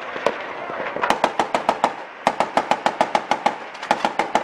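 Several bursts of .50 calibre machine-gun fire from the ship, about eight shots a second, with short pauses between bursts.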